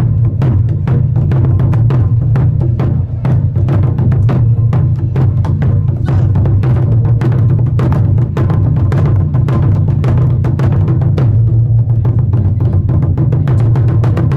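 Thai barrel drums beaten hard with wooden sticks by several drummers together, a fast, dense war-drum rhythm of many strikes a second over a deep continuous boom.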